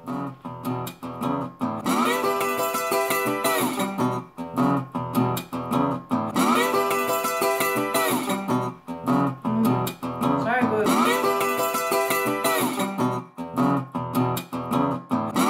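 Background music led by guitar, with a phrase that repeats about every four seconds.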